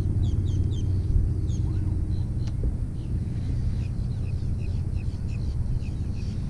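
Low wind rumble on the microphone under a bird's repeated short, high, falling chirps, a few a second, with one sharp click about two and a half seconds in.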